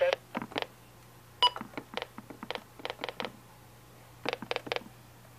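Buttons being pressed on a Reecom R-1630D weather alert radio: a series of clicks in small clusters, with one short key beep about a second and a half in.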